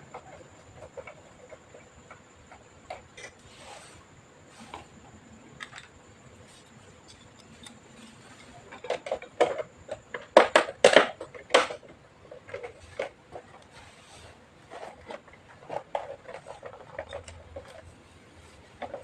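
Scattered clicks and light knocks of small hard parts being handled, with a quick run of louder clicks about halfway through.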